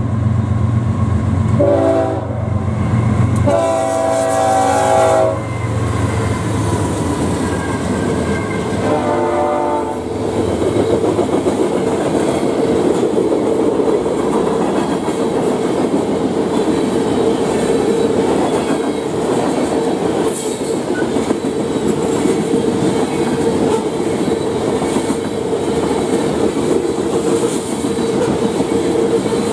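Freight train passing a grade crossing. The diesel locomotives rumble by and the air horn sounds three chord blasts, two long ones in the first few seconds and a shorter one about nine seconds in. Then a long string of covered hopper cars rolls past with steady wheel noise and rhythmic clickety-clack over the rail joints.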